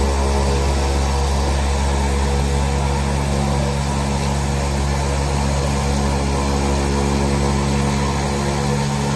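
Turboprop aircraft engine running at idle: a steady, even drone with several held tones.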